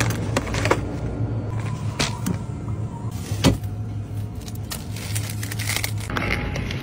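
A steady low hum, with scattered clicks and plastic rustles as packaged snacks and a plastic cup of ice are handled; the sharpest click comes about three and a half seconds in.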